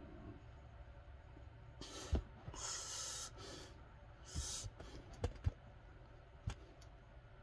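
Forceful breaths hissing out during one-arm dumbbell rows, with a few short sharp knocks: one about two seconds in, two close together past five seconds, and one more after six seconds.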